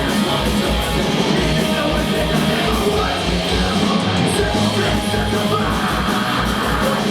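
Live punk rock band playing loud, with a fast, steady drum beat driving dense, continuous instruments.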